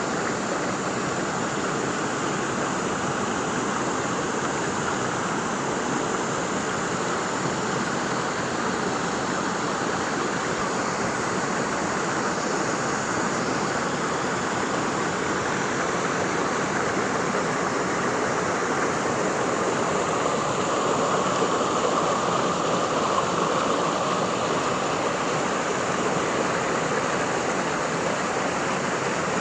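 Waterfall: a steady rush of falling and splashing water, swelling slightly about twenty seconds in.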